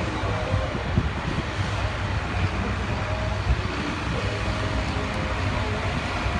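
Farm tractor engine running, a steady low rumble with a rough crackle.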